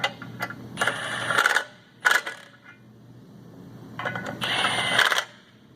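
Power tool running the clutch pressure-plate bolts down onto the flywheel in three short bursts, with the metal parts ringing as the bolts seat.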